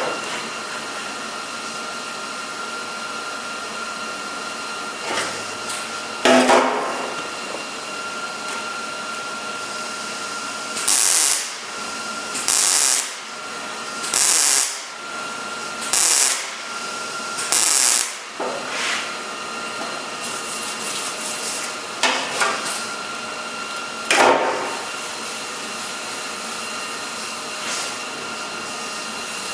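Welder laying five short tack or stitch welds on car sheet metal, each a crackling burst under a second long, about one every 1.7 seconds. There are a few sharp metal knocks before and after the welds.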